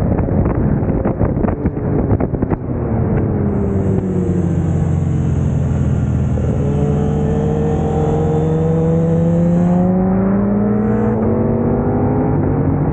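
KTM 890 Duke R's parallel-twin engine heard from on the bike, with wind buffeting the microphone at speed. About two and a half seconds in, the wind dies down and the engine note falls as the bike slows. It then rises slowly and steadily as the bike rolls on at low speed.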